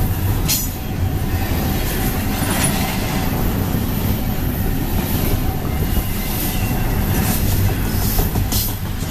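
Double-stack intermodal well cars of a freight train rolling past close by: a loud, steady rumble of steel wheels on the rails, with a few brief sharp clicks.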